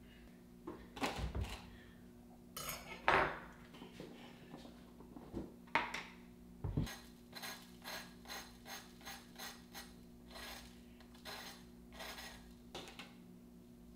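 Light knocks and clicks of hard objects being handled: a few louder, irregular knocks, then a steady run of lighter ones about two a second near the end, over a faint steady hum.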